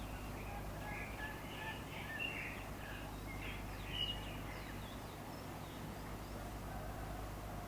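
Wild birds chirping and calling in short notes, busiest in the first half, over a steady low outdoor background noise.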